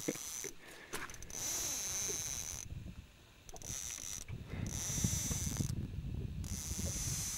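Fishing reel's drag buzzing in spells, cutting out and starting again three times, as line is pulled off the reel by a hooked carp.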